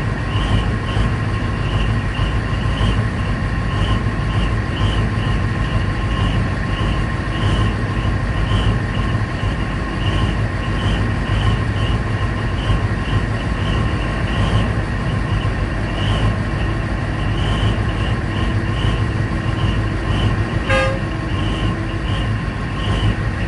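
Diesel engines of a large hydraulic mining excavator and a haul truck running steadily under load, a low continuous drone with a high pulsing tone repeating about twice a second.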